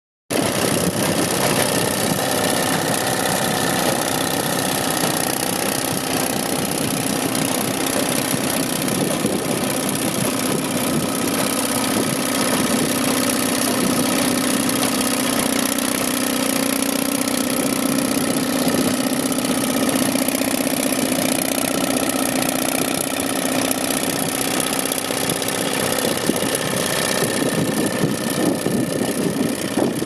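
Fordson E27N tractor and the Bamford BL60 baler's own engine running steadily together while the baler picks up and bales straw, with a continuous fast mechanical clatter.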